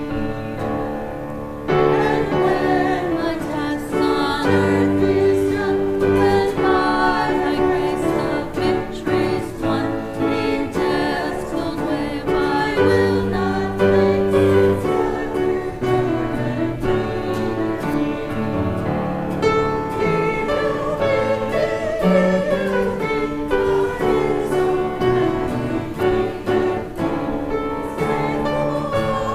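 Church congregation singing a hymn together, with instrumental accompaniment holding sustained bass notes under the voices.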